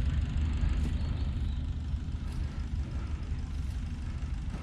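Tractor engine idling steadily with a low, even running note.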